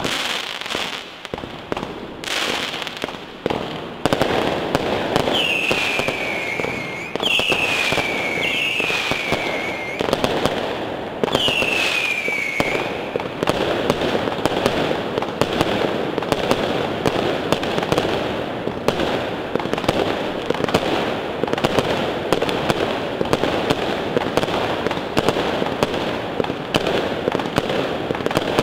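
Fireworks display going off: a few separate bangs at first, then from about four seconds in a dense, continuous run of bangs and crackle. Four whistling effects each fall in pitch, from about five to thirteen seconds in.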